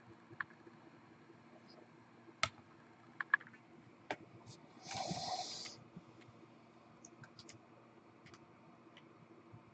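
Quiet handling noise: scattered light clicks and taps, with a short hiss about five seconds in.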